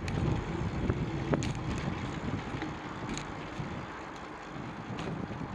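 Wind buffeting the microphone of a camera on a moving bicycle, a steady low rumble, with a few light clicks from the bike.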